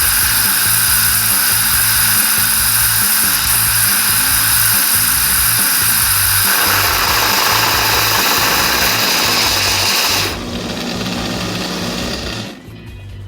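Philips 3200 LatteGo super-automatic espresso machine running through its cappuccino cycle, a loud steady hiss and buzz that shifts in tone about halfway, drops about ten seconds in and stops near the end. Background music plays underneath.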